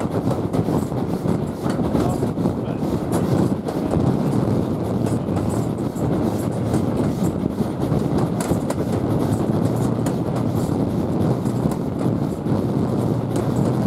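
Steam-hauled passenger train hauled by LMS tank locomotive no. 41312, heard at speed from an open carriage window: a steady running rumble of the wheels on the track with irregular clickety-clack.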